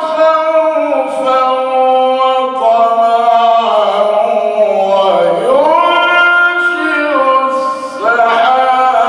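Male Quran reciter chanting in melodic tajweed style, drawing out long vowels in ornamented glides of pitch. The pitch dips and swings back up about five seconds in, and a short breath comes near the end.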